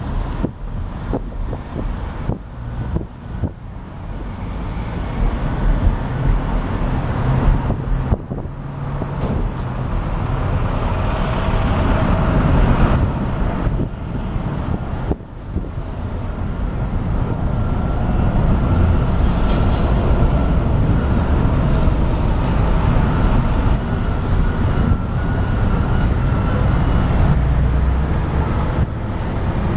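Steady low rumble of heavy vehicles, building louder over the first dozen seconds, with a faint steady whine joining about twelve seconds in.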